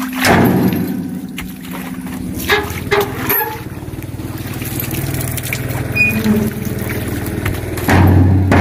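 Dump truck's diesel engine idling steadily while oil palm fruit bunches are thrown into its steel bed, landing with scattered thuds every second or so. The hum gets louder near the end.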